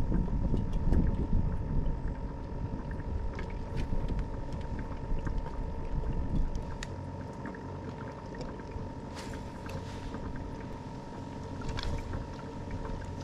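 Wind rumbling on the microphone, strongest in the first couple of seconds and easing later, over a steady faint hum, with scattered light clicks and taps.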